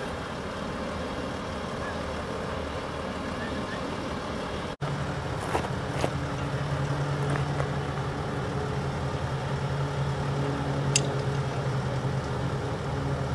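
Boom truck engine idling steadily, with a brief dropout about five seconds in, after which the hum is stronger. A few faint clicks come over it.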